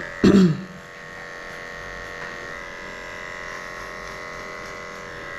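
Heiniger cordless dog clipper running steadily with a high hum, shaving the hair between a schnauzer's paw pads. About a quarter second in, a brief loud voice-like sound falls in pitch over the hum.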